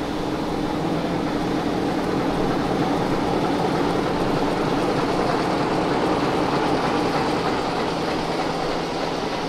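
Diesel locomotive's engine idling close by: a steady, even hum.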